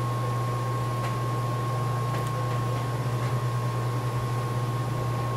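Steady low electrical hum with a thin constant high whine over a hiss, and a few faint light ticks about a second apart as small parts are handled.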